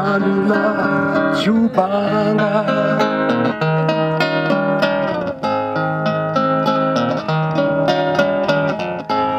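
Music: an acoustic guitar playing, with a voice singing over it in the first couple of seconds.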